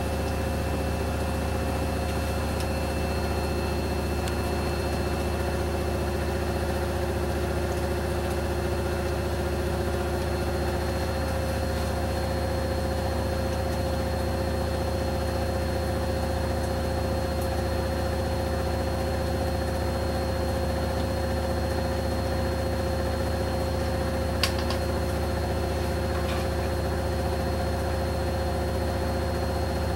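Samsung WD136 front-load washer-dryer running, its direct-drive motor turning the drum: a steady low hum with constant whining tones. A single sharp click comes late on.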